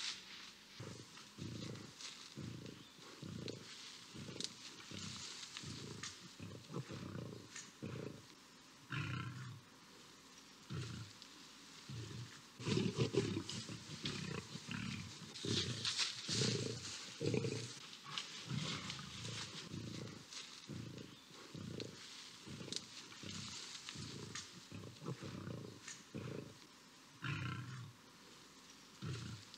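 Lions growling in short, repeated bursts, about two a second, louder around the middle.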